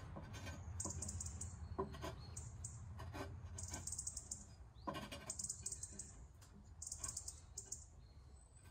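Light knocks and scrapes as the ceramic fire ring and inner parts of a Big Green Egg kamado grill are settled into place in the firebox. Bird twittering comes in about four short, rapid high-pitched phrases.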